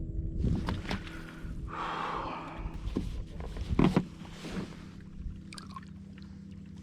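Knocks and rustling of gear being handled aboard a fishing kayak, the loudest knock about four seconds in, over a steady low hum.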